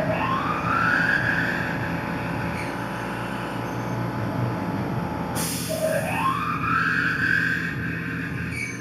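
Tormach PCNC 1100 mill spindle spinning up twice, its whine rising in pitch over about a second and then holding steady, over the running machine. A short hiss comes just before the second spin-up.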